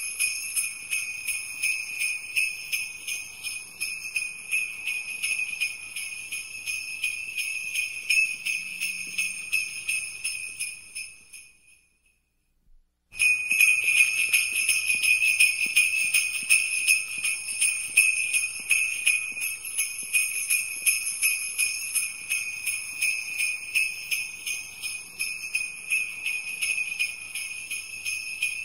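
Sleigh bells jingling continuously; they fade out about eleven seconds in, there is about a second of near silence, and then the jingling starts again abruptly.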